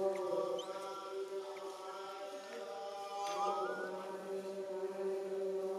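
Steady droning chant held on one low pitch, with a short rising squeak a little past the middle and faint high chirps.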